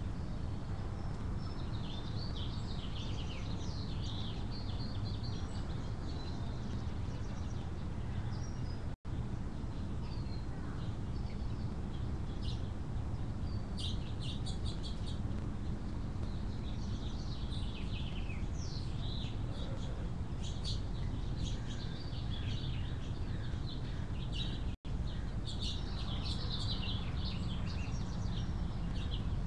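Birds chirping and singing in short, scattered phrases over a steady low rumble. The sound cuts out completely for an instant twice.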